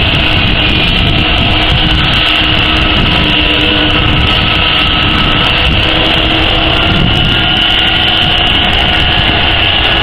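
Airbus A330-300 jet engines running at taxi power close by: a steady high-pitched whine over a low rumble.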